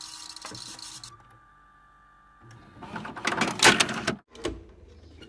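VHS video cassette recorder mechanism: a steady rewind whir that stops about a second in, then, after a short pause, the motor and gears clatter as the cassette is ejected, with a couple of sharp clicks near the end.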